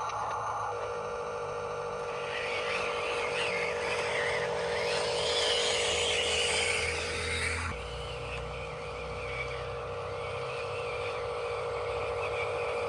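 Steady electric whine of radio-controlled construction models running their motors, with a wavering higher sound in the middle and a sudden change about eight seconds in.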